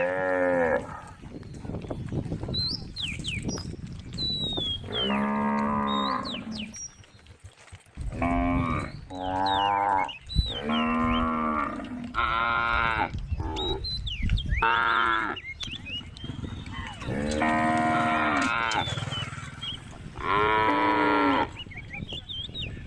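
Cows mooing over and over, about ten calls, most roughly a second long, with a longer drawn-out moo a little past the middle.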